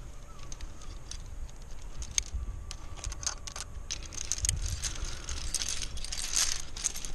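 Metal climbing gear (cams and carabiners on a harness rack) clinking and jangling as the climber moves, in irregular clicks that get busier in the second half.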